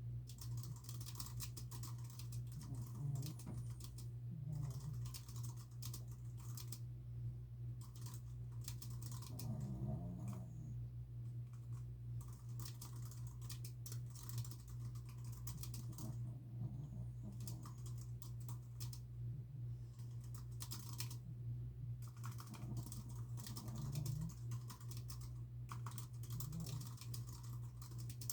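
Typing on a computer keyboard in fast runs of key clicks, broken by short pauses, over a steady low hum. Dogs snore faintly underneath.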